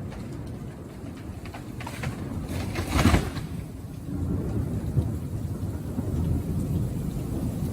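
Low rumbling storm noise with one louder burst about three seconds in.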